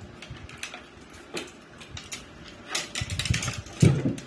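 Fishing rods with spinning reels being handled, giving scattered clicks and small rattles from the reels and rod fittings, with one louder knock near the end.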